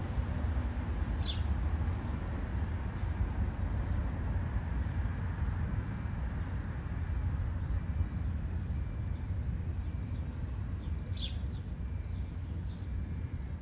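A few short, high bird calls, scattered singly, over a steady low rumble.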